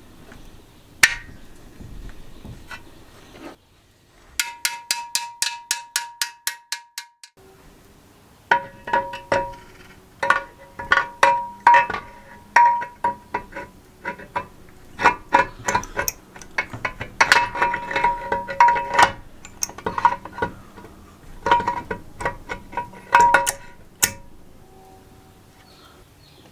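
Metal tapped against metal with a ringing tone, like a hammer on engine parts during assembly. First comes a steady run of about four taps a second, then irregular clusters of sharper, louder strikes.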